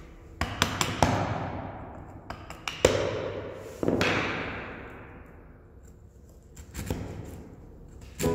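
Mallet blows on a bench chisel chopping out a notch in a softwood board: a quick run of about four taps, then two heavier blows, then a couple of lighter taps near the end, each blow fading away slowly.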